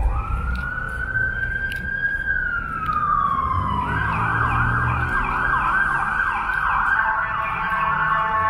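Emergency vehicle siren sounding on a city street: a slow rising and falling wail that switches about four seconds in to a fast warbling yelp, then to a steady blaring tone near the end, over the rumble of traffic.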